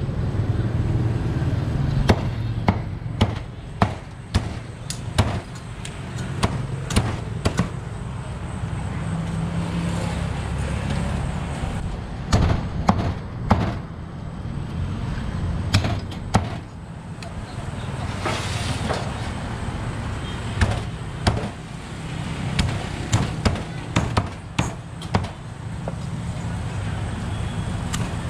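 Cleaver chopping a roasted duck on a round chopping block: sharp, irregular knocks, often in quick runs. Under them is a steady low rumble.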